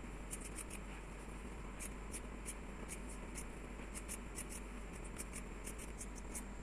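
Scissors snipping through T-shirt fabric: a faint, steady run of quick cuts, about three a second.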